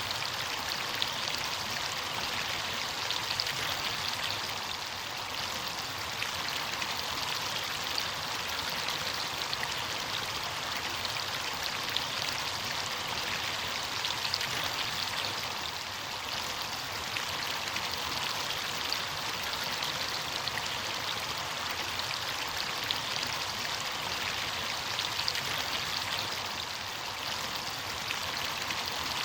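Running water of a stream or small cascade: a steady rushing splash with fine droplet patter.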